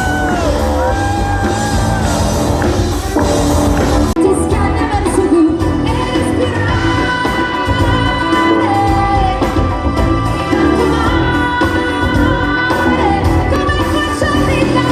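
Live pop music: a singer with sustained sung notes over an amplified band, loud throughout. The sound changes abruptly about four seconds in.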